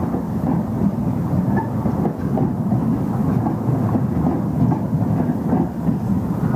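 TriMet MAX Siemens SD660 (Type 3) light rail cars passing close by, a steady rumble of wheels on rail with light clicks repeating as the wheels cross the track.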